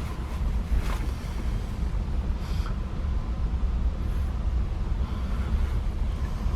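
Steady low rumble of a car's engine running, heard inside the cabin.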